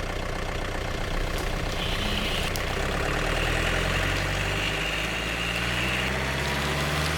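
Heavy haul truck's engine running steadily as the loaded truck sets off, a low, even engine drone with a slight rise in pitch in the second half.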